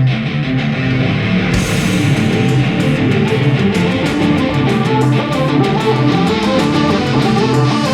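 Loud rock band music led by electric guitar, with cymbal strokes joining about a second and a half in.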